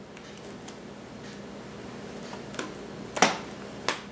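Handling noise from a two-piece silicone mold being turned in the hands: a few faint ticks, then three sharp clicks or knocks in the second half, the second of them the loudest.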